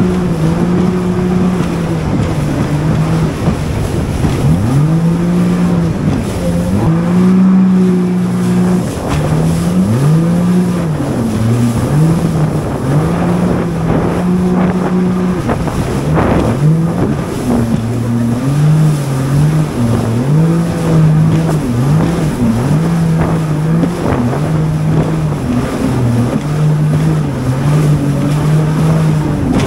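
Jet ski engine running under throttle, its pitch dropping and climbing again every second or two as the rider eases off and opens up, with wind noise on the microphone.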